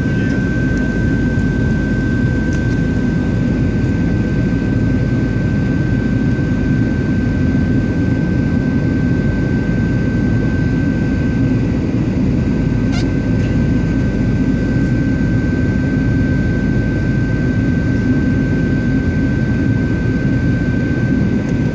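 Cabin noise inside a Boeing 737-700 in flight: the steady roar of its CFM56 jet engines and the rushing air, with a constant whine held on one pitch above it.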